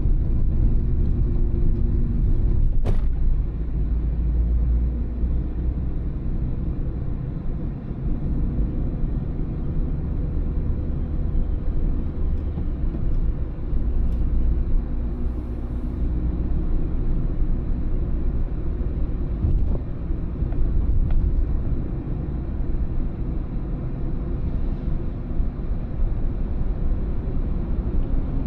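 Car driving at town speeds: a steady low rumble of engine and road noise, with a single sharp click about three seconds in.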